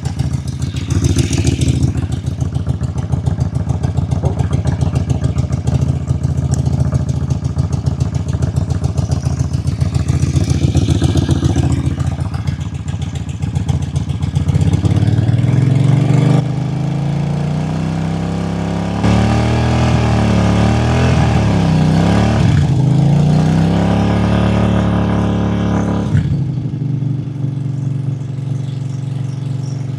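Suzuki Volusia 800's V-twin engine running, revved up and down from about halfway through, then dropping back to idle near the end. It is being run to circulate water through the cooling system after a coolant flush.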